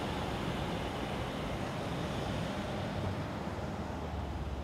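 Car running with a steady low rumble under a wide rushing noise.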